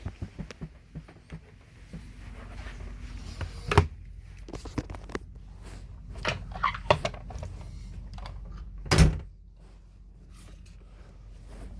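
Knocks and clicks of handling and moving around inside a bus: scattered small clicks and two sharp knocks, one about four seconds in and a louder one near nine seconds, over a steady low hum.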